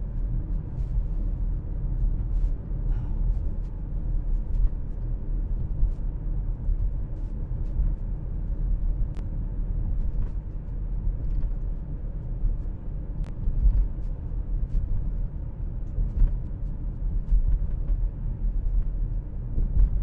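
Steady low rumble of a car driving at road speed, heard from inside the cabin: tyre and engine noise, with a few faint scattered ticks.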